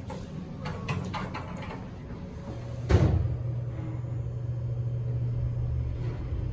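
Elevator car doors sliding shut, with a few light clicks as they travel, closing with a thud just before three seconds in. A steady low hum follows.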